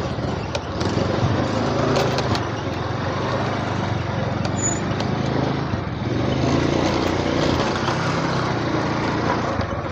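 Small motorcycle engine running steadily while riding, with road and wind noise.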